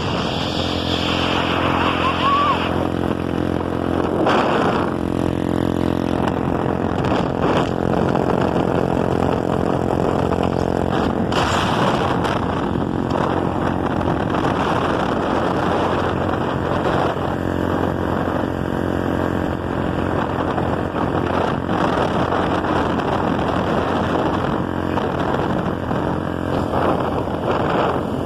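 A boat's engine running with a steady, loud roar.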